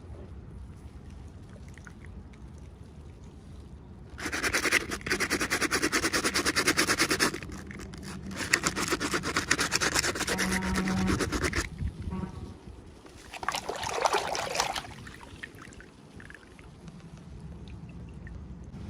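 Plastic packaging crinkling and rustling as it is handled and opened. It comes in two long bursts of rapid crackle, then a shorter one.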